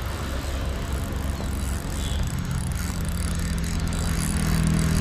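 Fishing reel ratcheting steadily with a fish on the line, growing slightly louder toward the end.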